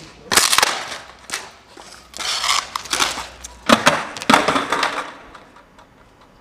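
Skateboard clacking and scraping on stone: a series of loud hits and grinding scrapes as a skater bails off a ledge and the board clatters onto the paving.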